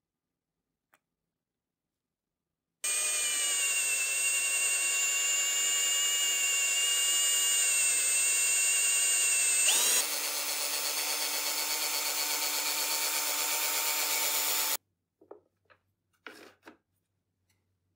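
Handheld rotary power tool running steadily with a polishing/sanding pad on the steel blade of a mezzaluna chopper, a high steady whine. About ten seconds in the sound changes abruptly to a lower-pitched steady machine hum that cuts off suddenly, followed by a few faint knocks.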